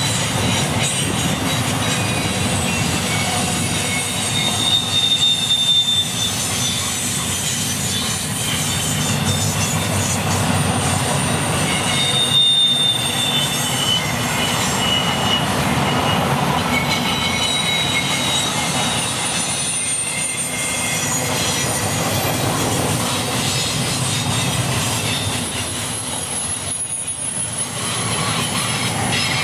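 CN double-stack container train's well cars rolling past: a steady rumble of steel wheels on rail, with high-pitched wheel squeal that comes and goes several times.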